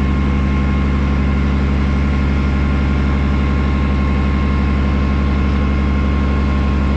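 Tractor engine running steadily: a deep, even drone with a faint steady whine above it.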